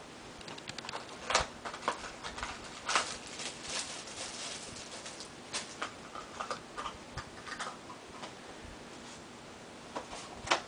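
Light clicks and rustling from small parts being handled by hand, scattered irregularly, with a few louder taps about a second and a half, three and four seconds in.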